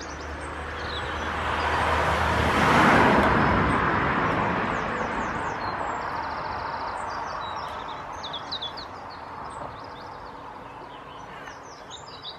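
A vehicle passing by: its noise swells to a peak about three seconds in, then fades slowly away. Birds chirp over it.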